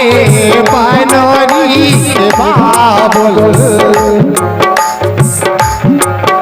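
Instrumental interlude of an Indian folk wedding song: a hand drum plays bass strokes that bend in pitch under a wavering melodic instrument line, the drumming getting busier about two thirds of the way in.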